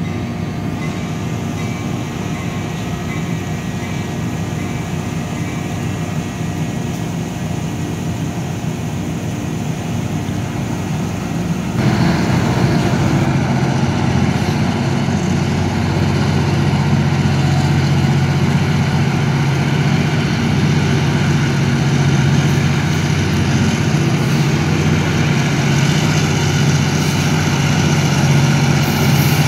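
Diesel switcher locomotives' engines running as they approach slowly with a string of freight cars, a steady low drone. It becomes suddenly louder about twelve seconds in.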